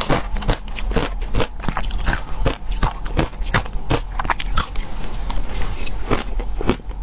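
Close-up crunching of shaved ice being bitten and chewed in the mouth: rapid, irregular crisp crunches, several a second.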